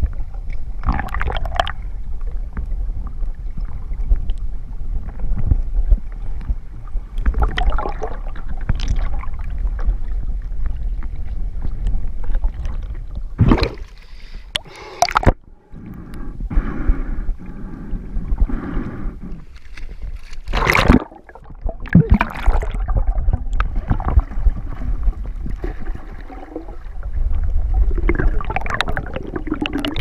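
Muffled water noise heard through a submerged camera: a steady low rumble of water moving around it as a person swims, broken by several sharp splashes or knocks, the loudest a little before halfway and about two-thirds of the way in.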